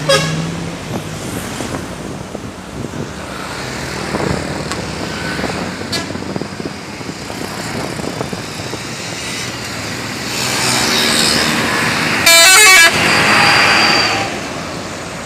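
Road traffic, then a bus comes by and its telolet horn, a multi-tone musical horn, plays a quick run of changing notes about twelve seconds in. The horn is the loudest sound, and the bus's passing noise follows it for a couple of seconds.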